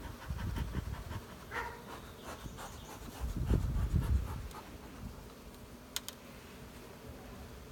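Honeybees buzzing over an opened top-bar hive while a comb is handled. Low rumbles come about half a second in and again, louder, around three and a half seconds, and there is a sharp click about six seconds in.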